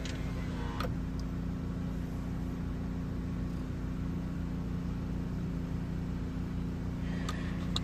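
Steady low hum inside a parked car with the engine idling, two even low tones over a rumble, with a faint click about a second in.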